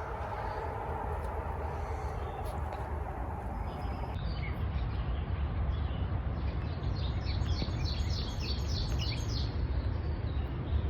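A songbird repeating a short high chirp about four times a second for several seconds in the middle, over a steady low rumble outdoors.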